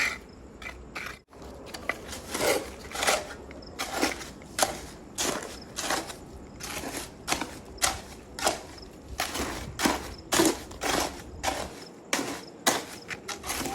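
A series of short scrapes and knocks, about one or two a second, from hand tools working wet cement mortar.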